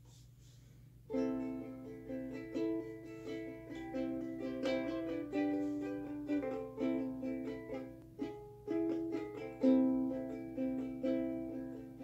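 Solo ukulele playing slow chords, starting about a second in.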